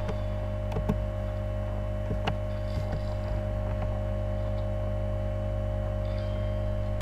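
A few sharp computer keyboard keystrokes over a steady low electrical hum with a constant mid-pitched tone.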